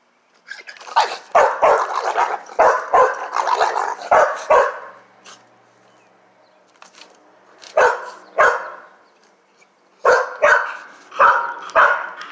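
Dog barking: a rapid flurry of loud barks, a pause, two single barks, then a quick run of four barks near the end.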